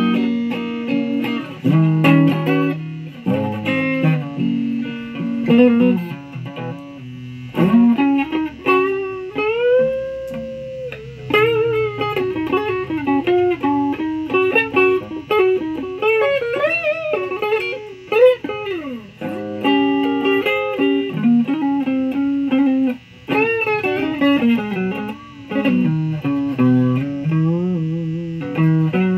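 Electric guitar played through an amplifier: a bluesy lead of picked single notes and short chord stabs, with several string bends and one long bent note held near the middle.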